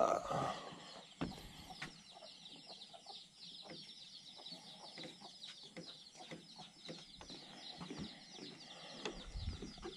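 Faint bird chirping: a rapid, even series of short high falling notes, about four or five a second, with a few faint ticks among them.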